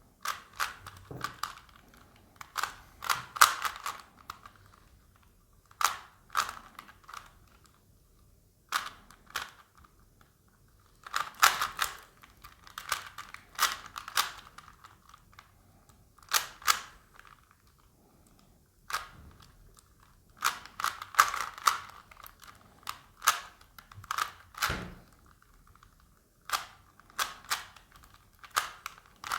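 Rubik's Cube being solved by hand: its plastic layers click in quick bursts of turns, with short pauses between the bursts.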